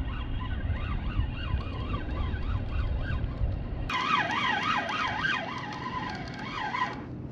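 Spinning reel being cranked fast to bring up a hooked fish, its gears giving a warbling whine that rises and falls with each turn of the handle, louder from about halfway through. Wind rumbles on the microphone in the first half.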